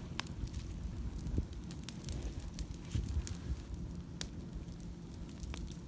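Bonfire crackling: irregular sharp pops and snaps over a steady low rumble.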